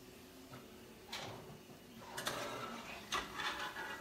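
A metal slotted spoon scraping in a pot of frying oil as crisp tortilla chips are scooped out, in three short scraping rustles.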